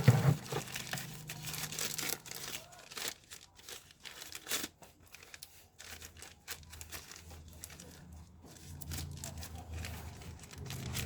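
Plastic packaging crinkling and rustling as the router's accessories are unwrapped and handled, in irregular crackles and handling noises. A low hum comes up about halfway through.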